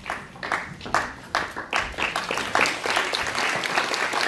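Audience applauding, with single claps close by standing out from the rest, a little sparser in the first second and then fuller.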